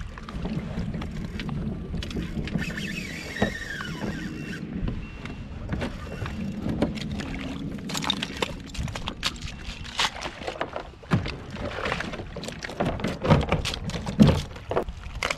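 Water and hull noise around a plastic fishing kayak, then, from about halfway through, a string of sharp crunches and clicks as feet step and shift on a bed of oyster shells.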